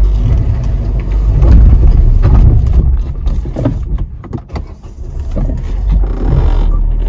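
Hyundai i20 hatchback labouring up a steep, rough mountain climb: a loud, steady low engine and road rumble with scattered knocks. It goes quieter for a moment about four seconds in.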